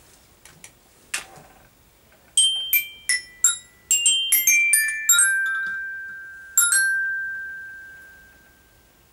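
Small metal-bar glockenspiel struck with a mallet: a quick run of about ten bright notes, then after a short pause one final note left ringing and slowly fading.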